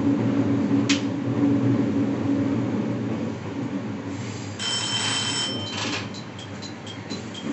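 The ATS warning bell of a JR 701 series electric train rings for about a second and a half, a little over four seconds in, over the steady rumble of the train running. It then gives way to a two-note chime repeating about three times a second, the continuing ATS warning as the train approaches a stop signal or the end of the line.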